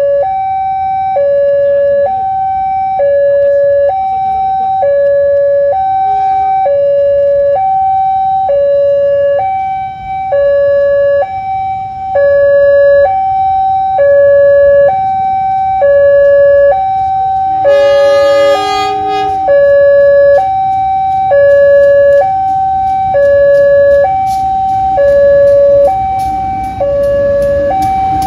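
Level-crossing warning alarm sounding continuously, an electronic two-tone signal alternating steadily between a higher and a lower note. About 18 seconds in, the approaching CC201 diesel locomotive sounds its horn for about a second and a half. Near the end, the locomotive's rumble and quick clicking of its wheels over the rails build as it reaches the crossing.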